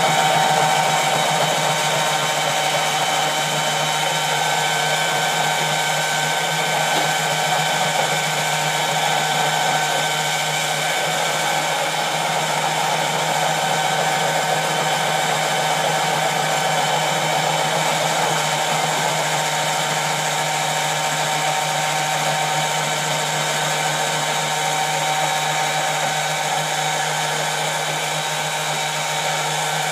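Electric tomato-milling machine running steadily, its motor and pressing screw giving a constant whine and hum as tomatoes are pushed through it.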